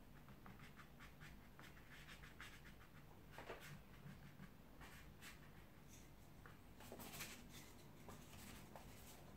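Faint scratching of a wide flat brush dragged across watercolour paper in short strokes, with a few louder scrapes partway through.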